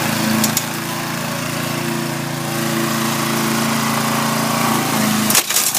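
Petrol lawn mower engine running steadily, smoking after being tipped over, which spilled petrol into the engine. Near the end there is a sharp clatter and a brief dip as the blade goes through a load of stones.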